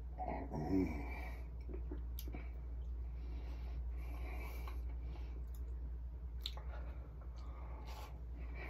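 A person eating a chocolate chip cookie close to the microphone: soft chewing with small mouth clicks and smacks. A short voiced sound from the throat comes about half a second to a second in, just after a swallow of half-and-half.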